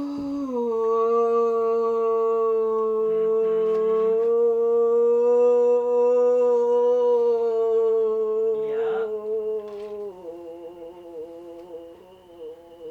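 A woman in active labor vocalizing through a contraction: one long, steady hum held for about ten seconds. It then drops lower and wavers before trailing off near the end.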